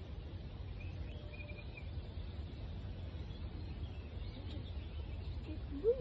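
Outdoor ambience: faint bird chirps over a steady low rumble of background noise, with a short rising sound just before the end.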